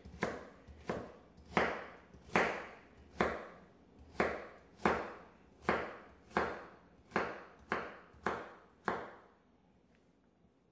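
Kitchen knife chopping carrots on a wooden cutting board: a steady, unhurried knock about every two-thirds of a second, thirteen strokes in all, stopping shortly before the end.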